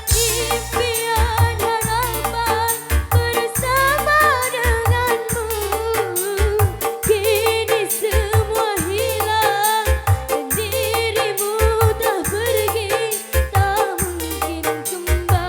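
Live dangdut music played on an orgen tunggal keyboard rig: a steady drum and bass beat under a wavering, ornamented melody, with a woman singing.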